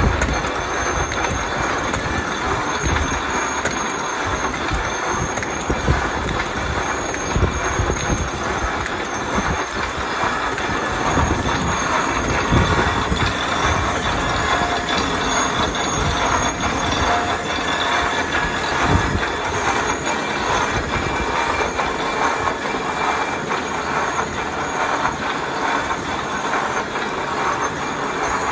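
Belladonna/capsicum plaster perforating machine running steadily: a dense mechanical clatter of rollers and mechanism with rapid, irregular clicking.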